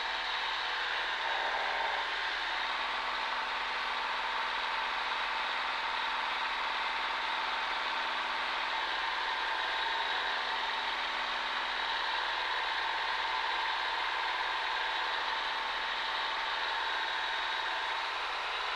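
Cessna 140A's engine and propeller droning steadily in flight, heard inside the cockpit.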